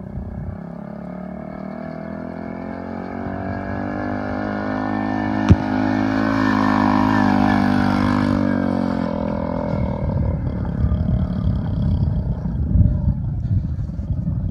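A mini quad's small engine running as the quad drives past. It grows louder as it approaches, passes closest about seven seconds in, then fades away. A single sharp click comes a little over five seconds in, and a low fluttering rumble follows in the last few seconds.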